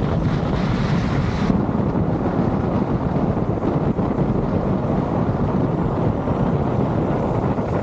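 Wind rumbling on the microphone of a camera riding on a motorcycle, with the motorcycle's engine running steadily underneath. A higher hiss drops away about a second and a half in.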